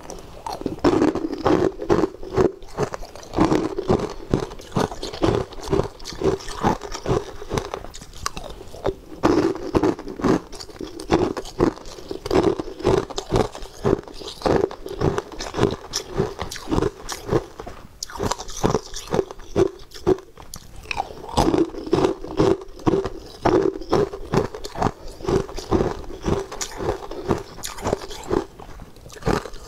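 Close-miked crunching and chewing of frosty blue ice pieces: a fast run of crisp, sharp crunches as the ice is bitten and ground between the teeth, with only brief lulls.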